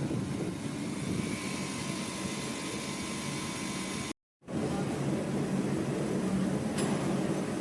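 CNC turning lathe running, a steady mechanical hum and hiss with faint steady tones, cut off for a moment about halfway through, then running on with a brief tick near the end.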